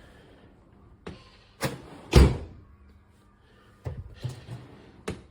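Several separate knocks and clunks of metal parts being handled on a dishwasher door while its hinge tension screw is backed out. The loudest comes a little after two seconds in, with a quick cluster of lighter knocks near the end.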